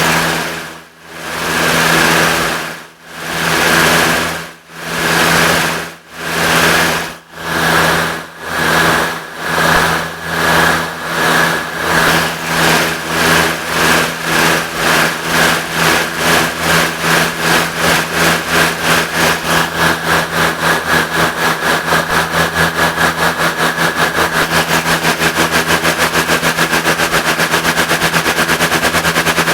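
Synthesized steam locomotive chuffing as it pulls away from a standstill and speeds up. The puffs start slow, about a second and a half apart, and quicken steadily to a rapid run of several a second, over a steady hum.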